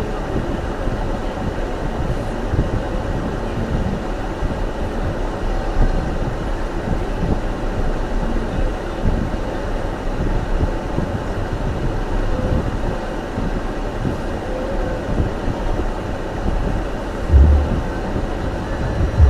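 Steady road and tyre rumble heard from inside a car cabin, driving on snowy roads, with a brief low thump near the end.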